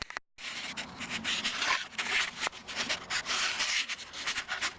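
Irregular rubbing and scraping with small clicks as parts are handled close to the microphone. The sound cuts out completely for a moment just after the start.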